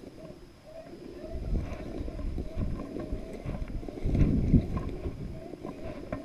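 Footsteps swishing and crunching through tall dry grass and brush, with wind buffeting the body-worn microphone. The heaviest steps come about four seconds in.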